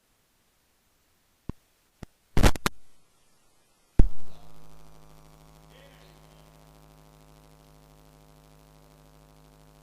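A few sharp electrical clicks and pops, loudest about two and a half and four seconds in, after which a steady buzzing mains hum from the sound system sets in and stays.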